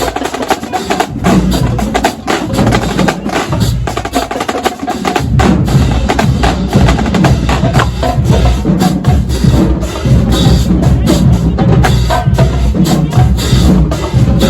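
Marching band drumline playing a percussion cadence: rapid, sharp drum strikes and clicks, with the deep bass drums coming in strongly about five seconds in.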